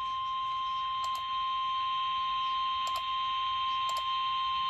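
A single steady alert tone of about 1050 Hz, the NOAA Weather Radio warning alarm tone that comes before a relayed weather warning, heard over FM radio with a steady hiss. Brief clicks break in about a second, three seconds and four seconds in.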